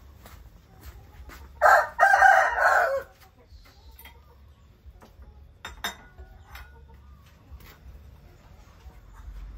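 A rooster crowing once, a single call lasting about a second and a half.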